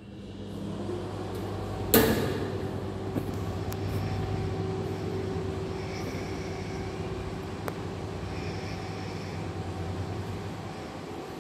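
A steady low machine hum, with one sharp knock about two seconds in and a couple of faint clicks later.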